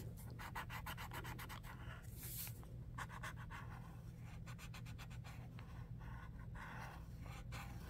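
Paper blending stump rubbing graphite into drawing paper in quick, repeated short strokes, faint, as the shading is blended and faded out.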